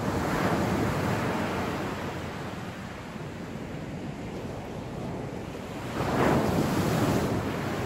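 Waves breaking on the beach twice, once at the start and again about six seconds in, over the steady wash of the surf.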